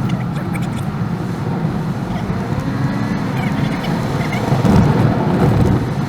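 Steady road and engine rumble of a car driving, with a few faint clicks and short higher chirping sounds over it.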